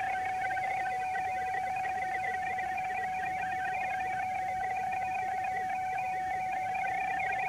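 A received PSK31 digital-mode signal heard through the radio's speaker: one steady tone at about 750 Hz, while the phone decodes it into text. Above it runs a faint busy scatter of short higher pips.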